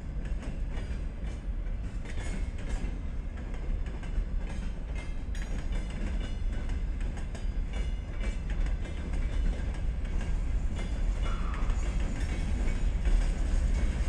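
Freight train of tank wagons rolling past close by: a steady heavy rumble with the wheels clacking over the rail joints, getting a little louder toward the end.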